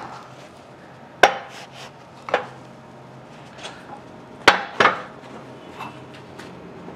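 Metal parts being set and shifted on a shop press bed: a few sharp clanks, the loudest about a second in and again around four and a half seconds, with a pair of lighter knocks between.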